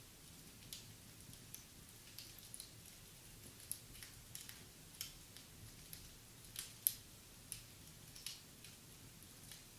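Wood fire in a fireplace crackling, with faint, irregular pops and snaps. One sharper pop comes about two-thirds of the way through.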